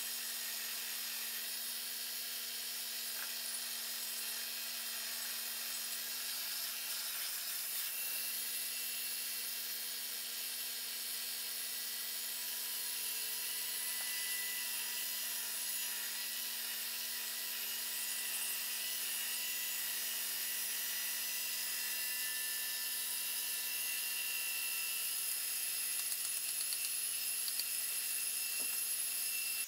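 Small electric belt grinder running steadily while the steel head of a rounding hammer is ground against its abrasive belt: an even hiss over a constant motor hum.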